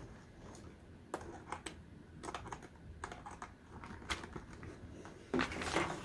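Faint, scattered clicks and taps of a DVI cable connector being handled and fitted into the port on the back of a Lenovo docking station, with a slightly louder stretch of handling noise near the end.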